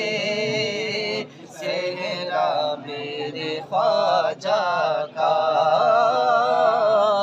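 A naat, Urdu devotional verse, sung in long wavering held notes with a few brief breaks for breath.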